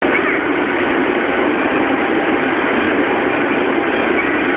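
Steady railway platform ambience: an even, unbroken noise with no distinct events, such as the running equipment of trains in the station.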